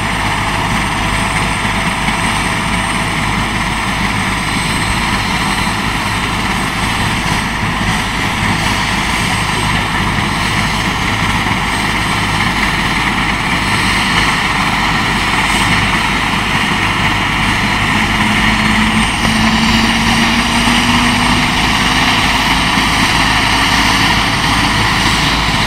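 Air-ambulance helicopter running on the ground: its turboshaft engine and turning rotor make a steady, continuous noise. In the last several seconds a faint tone rises slowly in pitch and the sound grows a little louder.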